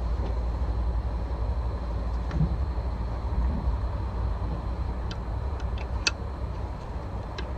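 Steady low rumble of a moving train heard from inside the carriage, with a few faint clicks near the end.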